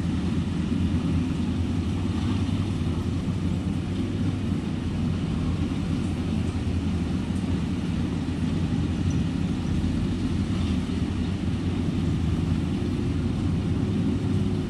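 Maxxi NDR 102L rice combine harvester's engine running steadily under load as it cuts rice, a continuous low drone.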